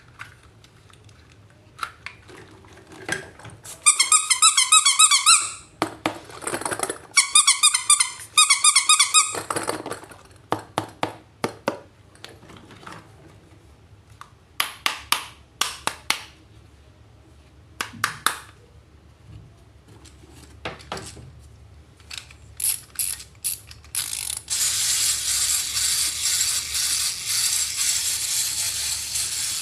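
Handling of toys and plastic packaging: scattered clicks and rattles, with two bursts of a warbling, chirping tone a few seconds in. A steady hiss fills the last few seconds.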